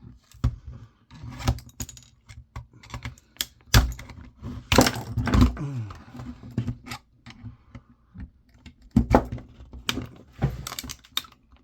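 A screwdriver prying at the plastic housing of a 1982 General Electric camcorder: irregular clicks, taps and knocks of the tool against plastic and metal parts, with louder knocks about four to five seconds in and again near nine seconds.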